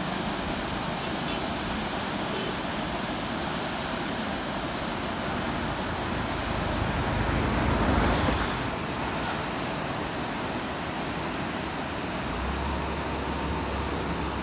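Steady roar of fast-flowing, flood-swollen muddy river water, swelling briefly about halfway through.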